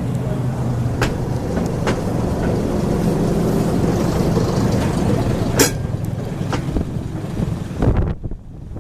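Train running with a steady low rumble, broken by a few sharp knocks, the loudest about five and a half seconds in.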